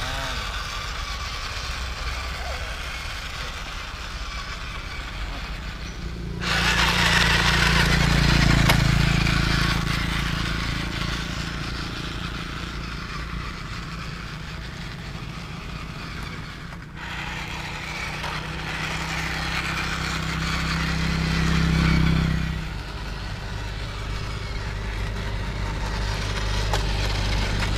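Remote-control toy tank driving over dirt and leaf litter: its drive and tracks running with a steady engine-like drone. The sound changes abruptly a few times, at about six, seventeen and twenty-two seconds in.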